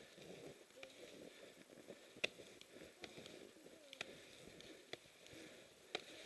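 Faint footsteps crunching through deep snow, with a sharp crunch roughly once a second.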